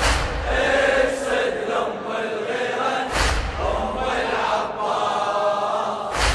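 Layered voices chanting a mourning chant in a choir-like vocal passage. A deep percussive thump falls about every three seconds.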